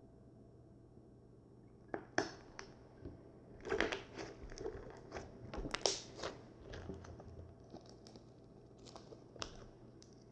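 Slime being pressed with a potato masher, giving irregular crackles and pops as air is squeezed out, starting about two seconds in.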